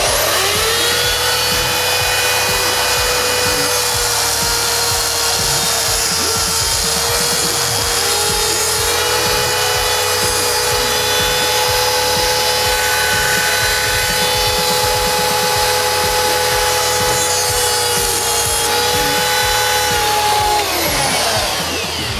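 High-speed rotary tool with a cut-off wheel spinning up, running steadily while it cuts through metal on an AR-15 upper, then spinning down shortly before the end.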